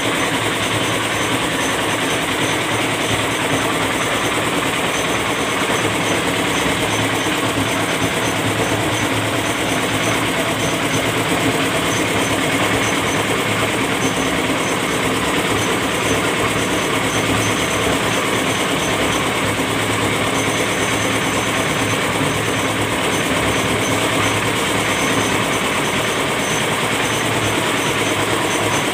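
A small stationary engine running steadily, mixed with the sizzle of tofu frying in a large wok of hot oil over a wood-fired brick stove.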